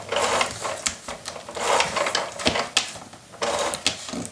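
Cardstock being handled and cut at a craft table: a series of short rustling, scraping strokes of paper.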